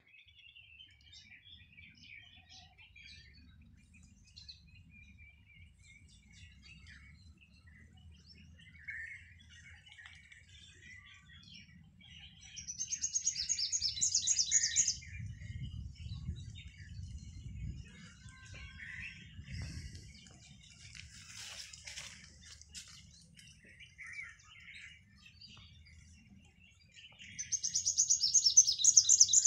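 Small birds chirping and twittering on and off. Two louder, rapid strings of high repeated notes come about halfway through and again near the end.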